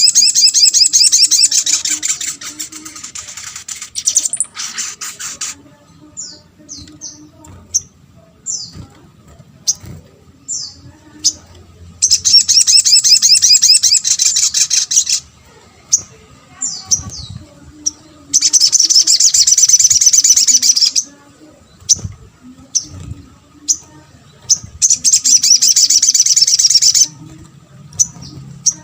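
Sogon (sogok ontong), a small sunbird, singing: four stretches of very fast, high twittering, each about three seconds long, with short single high chirps between them. This is the lively song used as a lure to make other sogon answer.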